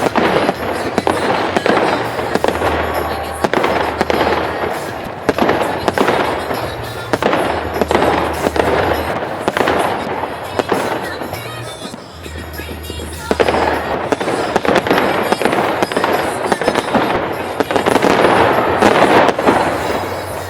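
Fireworks display going off: a rapid, continuous run of bangs and crackling bursts, with music playing underneath.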